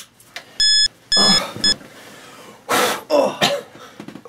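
A hospital pager bleeping: a quick run of three short, high electronic beeps about half a second in, the pager's repeating call alert. Later comes a rustle of movement and a man's grunts.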